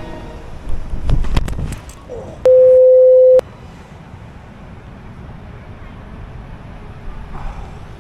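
A person slipping and falling on icy, snow-covered ground, with several heavy thuds and knocks as the body and the handheld camera hit the ice, then a loud steady beep lasting about a second, a censor bleep over what was shouted.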